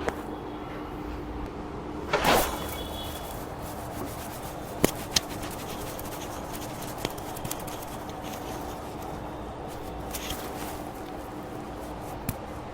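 Hands working on a patient during a manual treatment: a brief rustle about two seconds in and a few sharp clicks, two of them close together about five seconds in, over a steady low hum.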